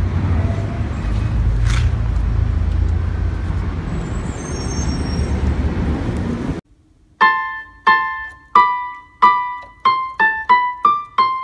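Steady low outdoor rumble on a phone microphone. After about six seconds it cuts to a short keyboard jingle of about ten single, quickly decaying piano-like notes that come faster near the end.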